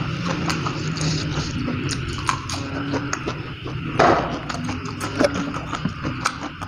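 Eating sounds: scattered small clicks of a wooden spoon and chopsticks in a bowl of instant-noodle soup, with mouth and lip sounds. About four seconds in comes one loud breathy burst as the eater blows out, mouth pursed, from the chilli heat.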